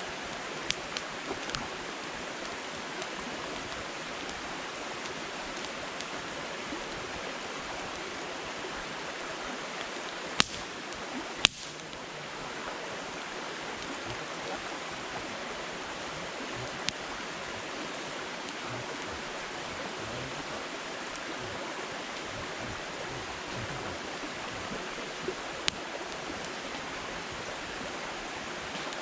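Firewood burning in a campfire: a steady hiss with scattered sharp crackling pops, the loudest about eleven and a half seconds in.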